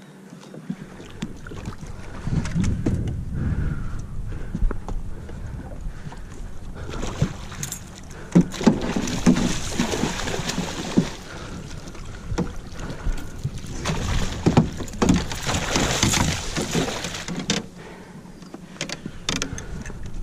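Water splashing beside a small fishing boat in two long bursts, with scattered knocks and a low rumble.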